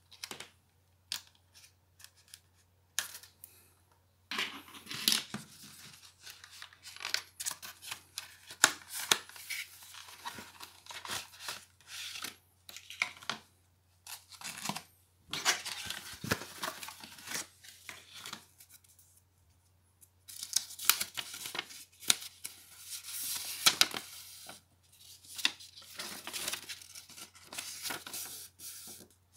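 Hands unpacking a boxed RAM kit: a cardboard box being opened, a clear plastic clamshell tray crackling and clicking as it is handled, and near the end a folded paper leaflet rustling as it is opened. Irregular rustles and sharp clicks with short pauses between them.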